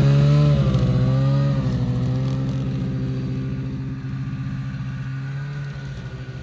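Snowmobile engine running just off idle, its pitch wavering up and down once in the first two seconds, then holding steady while the sound grows steadily fainter.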